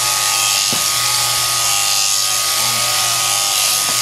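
Electric sheep-shearing handpiece running steadily, its comb and cutter buzzing through the fleece as the sheep is shorn.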